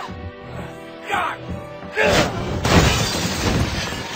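A crash with a shattering sound about two seconds in, its noise trailing off over the next couple of seconds, over film-score music. A shorter burst comes a second before it.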